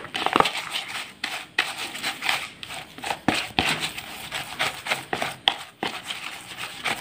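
Plastic rice paddle stirring and scraping a crumbly bait mixture in a plastic basin: irregular scrapes and rustles.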